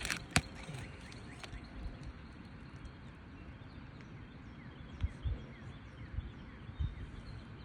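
A few sharp knocks and scrapes from a roof snake nail-removal tool working the nails out of an asphalt roof shingle, over a steady outdoor background.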